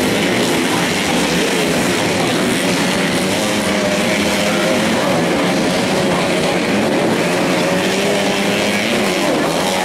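Underbone racing motorcycles' engines running hard around the track, a continuous engine drone whose pitch wavers slowly up and down.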